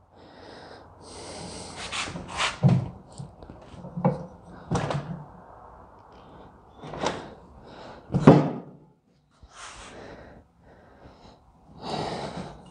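Bench vise and metal tools being handled on a workbench: a series of sharp metal clunks and knocks, the loudest a little past the middle, with scraping and rattling between them.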